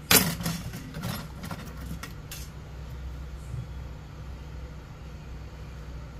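A loud knock at the start, followed by a quick run of clicks and taps for about two seconds as a phone circuit board and tools are handled on a workbench. Under it runs a steady low hum.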